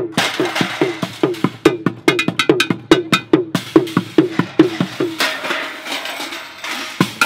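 Street drumming on recycled objects: a steady beat of low thuds on plastic buckets and tubs, about two and a half a second, with sharp clattering hits on pots, pans and metal scraps over it. About five seconds in the low beat drops out, leaving lighter metallic clatter, and it comes back at the very end.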